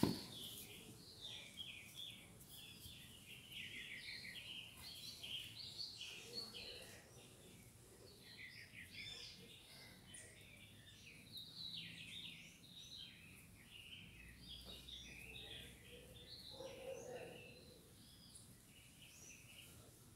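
Birds chirping and singing in a faint, almost continuous run of short, high calls over low outdoor background noise.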